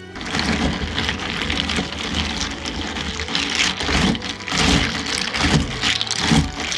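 Ice cubes rattling and clinking in a tall plastic cup as a long metal bar spoon stirs them through milk and green tea: a dense, irregular clatter.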